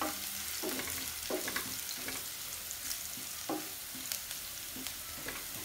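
Crushed garlic frying in hot oil with a steady sizzle, stirred with a wooden spatula that scrapes against the pan now and then. The garlic is being fried only slightly, in a tempering of cumin, fenugreek and urad dal.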